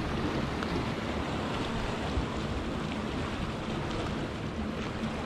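Wind rushing over the microphone and the wash of the sea at the shore, a steady noise with a faint low hum underneath.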